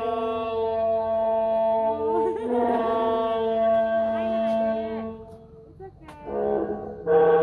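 Animatronic dinosaur's loudspeaker playing a long, horn-like call, wavering in pitch near the middle. It breaks off about five seconds in, and a second call starts near the end.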